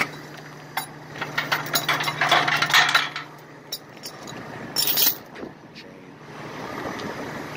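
Steel chain being handled, clinking and rattling in irregular bursts, heaviest about a second in and again near five seconds. A steady low engine hum from an idling truck runs underneath.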